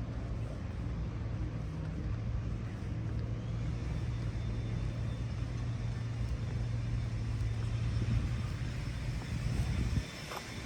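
Steady low engine rumble of a motor vehicle with a constant hum, easing off about ten seconds in.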